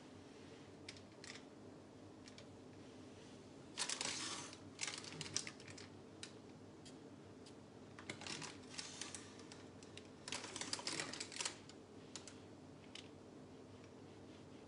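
Silicone spatula scraping through fudge batter in a tin lined with baking paper, the paper crinkling in short bursts of crackly scraping, over a faint steady hum.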